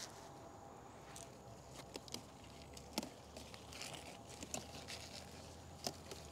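Faint rustling of garden plants with scattered light snaps and clicks, about half a dozen, as leaves and stems are handled while picking vegetables, over a faint low hum.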